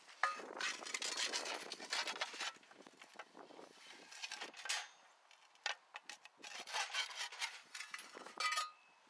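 Wood scraping and rattling against a wire-mesh cage trap as a stick is worked around inside it, an irregular run of scrapes and clicks with a short squeak near the start and another near the end.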